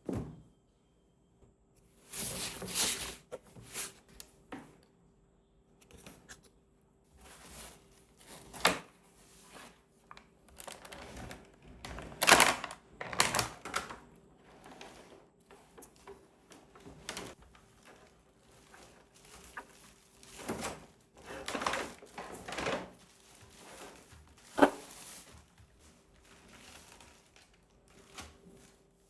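Packaging of an RC truck being handled and opened by hand: irregular taps, thunks, scrapes and rustles, with a sharp knock about twelve seconds in and another near the end. A faint steady hum runs underneath.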